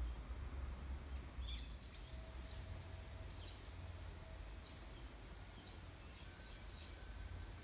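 Small birds giving short high chirps, starting about a second and a half in and repeating every second or so, over a low steady rumble.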